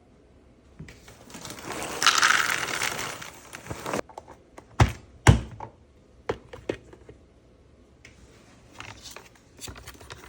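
Items being handled and set down: a rustling noise for a few seconds, then two sharp knocks about half a second apart, followed by scattered light clicks and taps.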